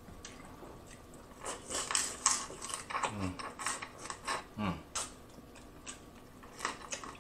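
Wet chewing and lip-smacking as sauce-soaked king crab meat is bitten and eaten, starting about a second and a half in. Two short, falling "mmm" hums come midway.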